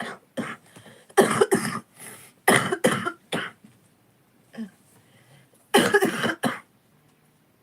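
A person with a chest cough coughing in several short fits of two or three coughs each, with a few single coughs between them.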